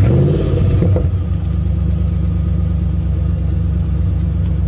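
A vehicle engine just fired up, flaring unsteadily for about the first second, then settling into a steady low idle.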